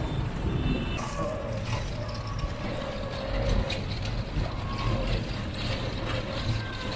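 Street traffic: engines and tyres on a cobbled road. About a second in, it changes to the steady rumble of riding in an open rickshaw among motorbikes and other vehicles.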